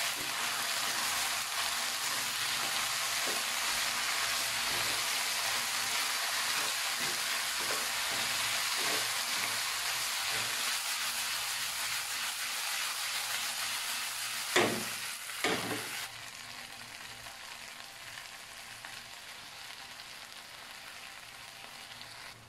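Chicken strips and bell peppers sizzling in a nonstick wok as they are stir-fried, turned with a wooden spatula that knocks softly against the pan. Two louder knocks about a second apart come a little past the middle, after which the sizzle is quieter.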